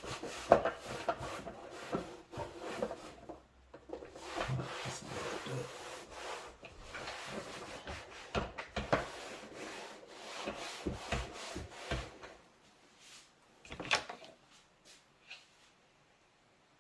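Cloth wiping and scrubbing over a door card with soapy water, in irregular rubbing strokes with a few knocks as the panel is handled. After about twelve seconds it stops, leaving only a few faint taps.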